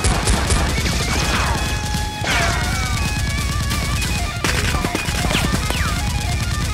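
Rapid gunfire sound effects, long bursts of machine-gun-like shots, over background music with falling swooping tones.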